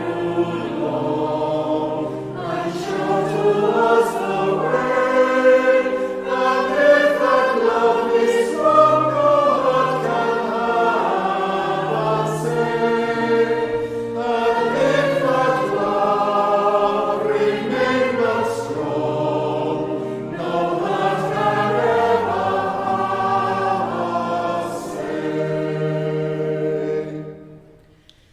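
A group of voices singing a hymn in several parts, with long held notes. The singing dies away just before the end, at the close of a verse.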